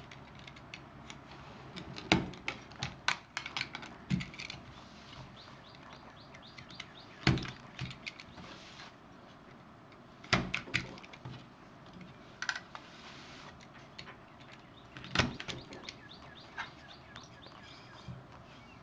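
Wooden gears being punched out of a thin laser-cut wooden sheet: sharp snaps and knocks as the wood gives way, four loud ones spread through, with many smaller clicks and taps between them.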